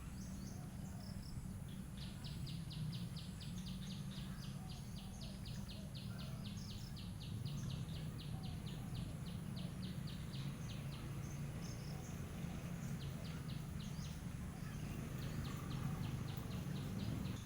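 A small animal's high, rapidly repeated chirp, about four to five chirps a second, in long runs that pause around the middle and start again near the end, over a steady low hum.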